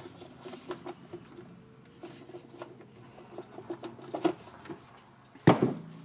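Gloved hands working the old starter solenoid loose from a gas golf cart: scattered small clicks and rustling of metal and plastic parts, with one sharp knock near the end.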